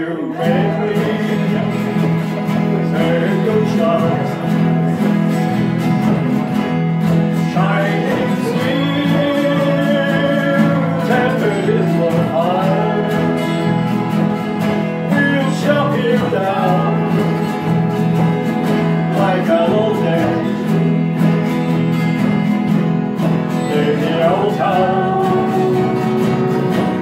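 Small folk band playing live: strummed acoustic guitars with a melody line moving above steady chords.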